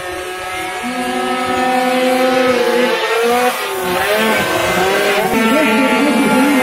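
Engines of several small racing motorcycles, including a Honda NSR 80 prototype fitted with a water-cooled Derbi Variant Start two-stroke engine, revving up and down through a bend as the riders shift. The overlapping engine notes rise and fall in pitch and grow louder over the first couple of seconds as the bikes approach.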